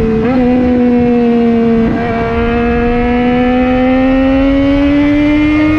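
Motorcycle engine heard from on the bike at speed, its note holding steady and slowly rising in pitch as it pulls, over a rush of wind on the microphone.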